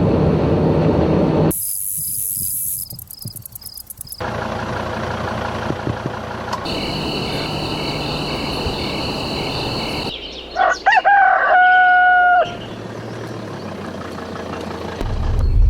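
A string of separate sound effects and ambiences, each cut off abruptly and replaced by the next. The loudest is a rooster crowing once, about ten seconds in: a rising start, then a held note lasting about two seconds.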